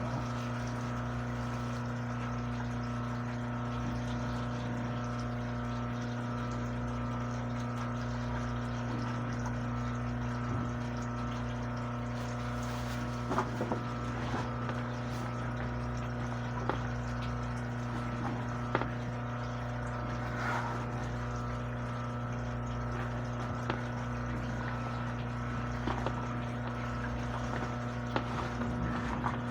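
A steady low electrical hum, unchanging throughout, with a few faint light clicks scattered through it.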